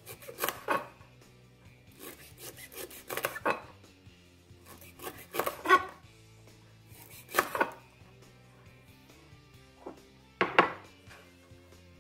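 Chef's knife chopping lemongrass stalks on a wooden cutting board. The cuts come in about five short runs, each a quick series of sharp knocks of the blade on the board, spaced a couple of seconds apart.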